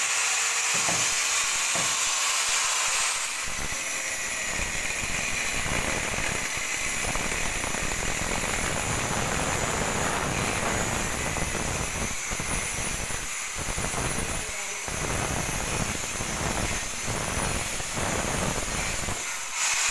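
Handheld angle grinder with a thin cutting wheel spinning with a steady high whine, then from about three seconds in cutting through a steel pipe with a harsh, continuous grinding. Near the end the wheel comes free of the cut and the plain whine returns.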